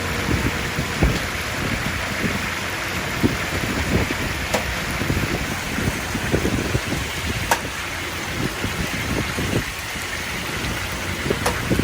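Chicken deep-frying in hot oil with a steady sizzle, over a low rumble of street traffic, with a few sharp clicks.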